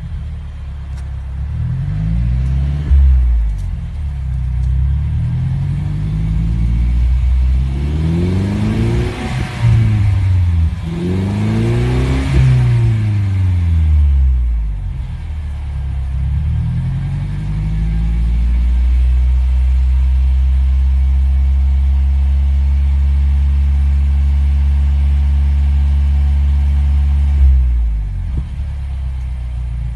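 Mercedes-Benz C-Class (W205/S205) exhaust through an s.d.f all-stainless rear muffler, the engine revved in a series of blips while parked, the highest and loudest a third of the way in. It is then held at a steady raised speed for about eight seconds and drops back toward idle near the end.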